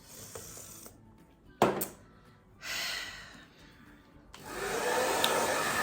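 A sharp click about a second and a half in and a short burst of hiss a little later, then a handheld hair dryer switches on near the end and runs with a steady blowing whir.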